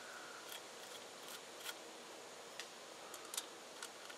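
Small metal bolts being threaded back in by hand on a generator's carburetor mount: a scatter of light, sharp metallic clicks and ticks, the loudest a little past three seconds in.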